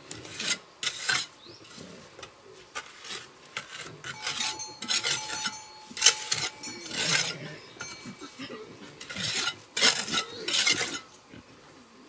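Steel trowel scraping and smoothing wet cement mortar over the joints of a brick wall: a dozen or so short, irregular scraping strokes of metal on mortar and brick, stopping about a second before the end.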